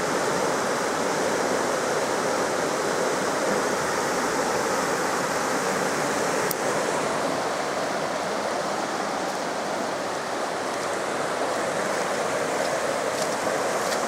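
Steady rush of a fast-flowing forest stream.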